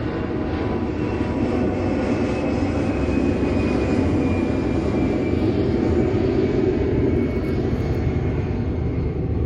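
A steady engine drone, with a faint whine that slowly falls in pitch as it goes.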